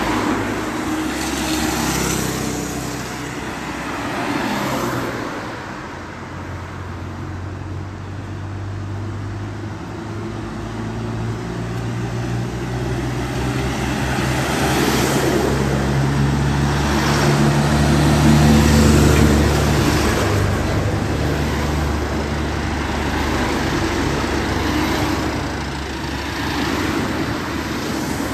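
Street traffic: vehicles passing one after another with a steady engine hum that climbs in pitch and grows louder towards a peak a little past halfway, then eases off.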